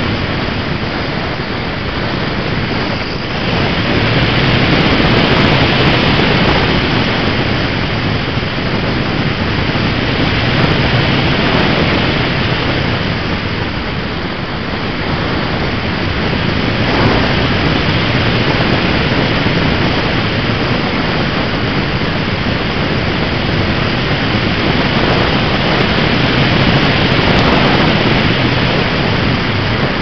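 In-flight noise of a motor glider picked up by its onboard camera: a loud, steady rush of air and motor that swells and eases as the craft manoeuvres.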